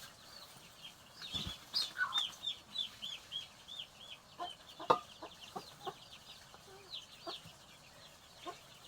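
Chicks peeping in a quick run of short high chirps, about three or four a second, with scattered lower calls from the flock. A single sharp knock about five seconds in is the loudest sound.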